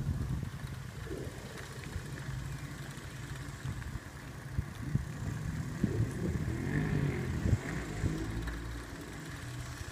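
Steady low rumble of wind and rolling road noise on the microphone of a camera moving along behind a child's bicycle.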